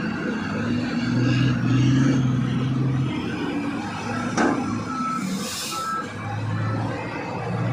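Komatsu HD785 haul truck's diesel engine running, louder for a couple of seconds early on. A sharp click comes a little past halfway, then a short hiss of released air about five seconds in, with faint short beeps.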